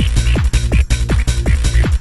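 Electronic dance music with a heavy, fast beat and quick falling synth notes repeating about five times a second.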